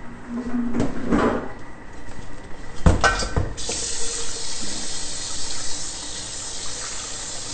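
A kitchen faucet turned on about three and a half seconds in, running steadily into a stainless steel Thermomix mixing bowl held under it in the sink. A single knock comes just before the water starts.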